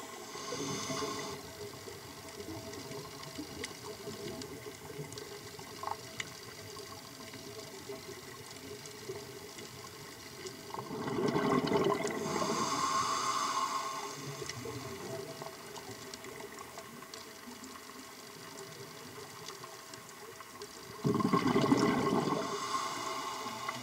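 Scuba regulator exhaust heard underwater: the diver's exhaled air bubbling out in three bursts about ten seconds apart, each lasting one to three seconds, with a faint steady hiss between breaths.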